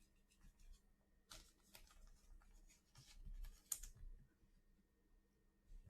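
Faint, scattered small clicks and soft scrapes of baseball trading cards being handled and slid from one card to the next.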